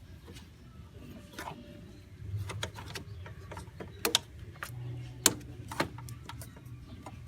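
Irregular metallic clicks and knocks of a wrench on the belt tensioner and the accessory drive belt being worked onto the pulleys, with a few sharper knocks about four, five and six seconds in.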